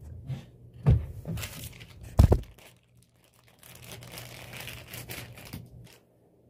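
A bag crinkling and rustling as it is handled, with two loud thumps about one and two seconds in, then a softer steady rustle.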